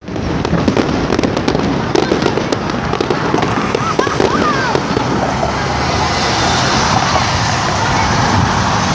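Fireworks going off, with many rapid sharp crackling pops over the first half and a steady background din throughout.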